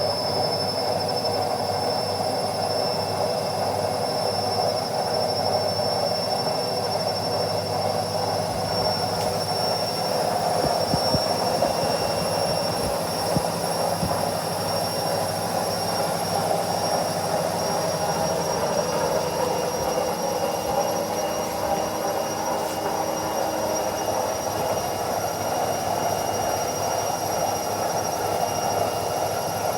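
Indesit washing machine running steadily: a constant whooshing mechanical noise with a few thin, steady high-pitched whines on top.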